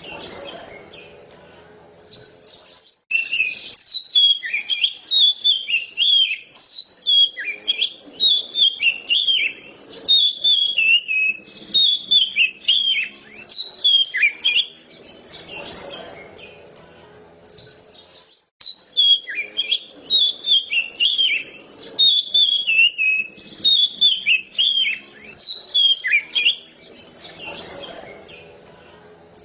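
Oriental magpie-robin (kacer) singing at full voice: rapid, varied whistled phrases in two long bursts, separated by a pause of a few seconds.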